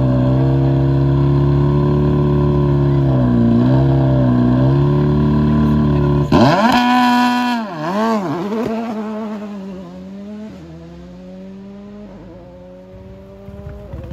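Turbocharged Volkswagen Polo rally car's engine held at high revs on the start line with anti-lag, dipping briefly once, then launching about six seconds in: revs rise and fall sharply through quick gear changes, and the engine fades as the car drives off.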